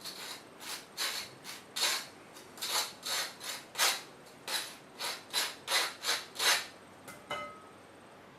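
Crunchy chewing of a BLT sandwich, a steady run of about two or three crunches a second that stops about six and a half seconds in.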